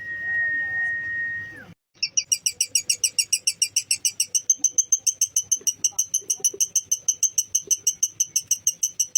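A steady high whistle note that bends down and stops, then a lovebird's long rapid chattering trill (the 'ngekek'), an even run of about six sharp high notes a second starting about two seconds in.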